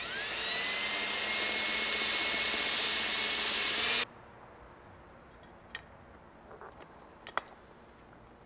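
Cordless drill spinning up with a rising whine and running steadily as it bores a bolt hole through a plastic door panel, cutting off abruptly about four seconds in. Afterwards a few small clicks as the bolt hardware is handled and started by hand.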